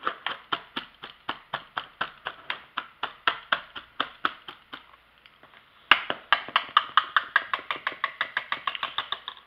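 Wire whisk mashing cooked potato in a plastic bowl: an even run of tapping strokes about four a second, a pause of about a second, then a sharp knock and a quicker run of strokes.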